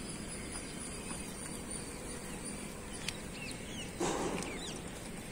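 Outdoor ambience of birds chirping, many short falling chirps over a steady background hiss, with a brief louder sound about four seconds in.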